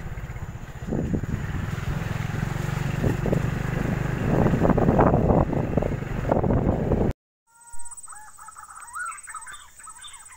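Motorbike engine running, with wind buffeting the microphone on a bumpy dirt track. It cuts off abruptly about seven seconds in, and after that birds give short pitched calls.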